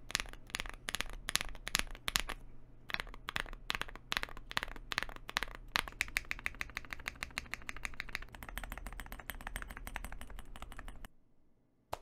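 Typing on a mechanical keyboard fitted with doubleshot PBT keycaps: separate keystrokes at first, then fast continuous typing from about halfway through that stops suddenly about a second before the end.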